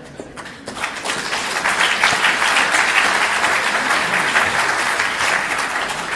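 Theatre audience applauding: the clapping builds up about a second in, holds, and tapers off near the end.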